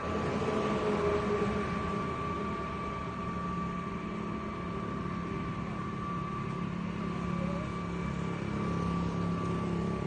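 Steady hum of road traffic, vehicle engines and tyres, with a thin steady high whine underneath.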